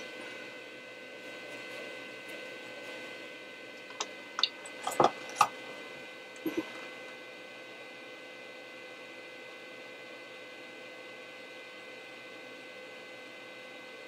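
Steady electrical hum from the bench equipment, with a few light clicks and taps about four to five and a half seconds in and two more a second later, as a soldering iron is worked over a circuit-board pad.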